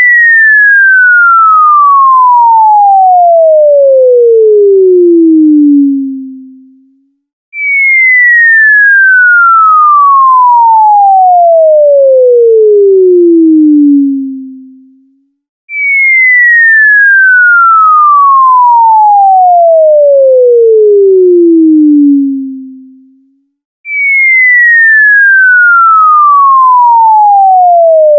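Cartoon falling-whistle sound effect: a single clean whistle tone gliding steadily down from high to low over about six seconds, then fading out. It repeats about every eight seconds, four times in all.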